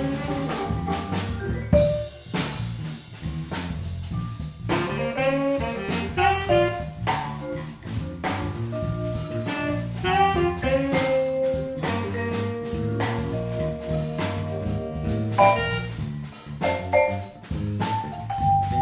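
Live jazz-funk band playing: vibraphone notes struck with mallets over an electric bass and drum-kit groove, with tenor saxophone.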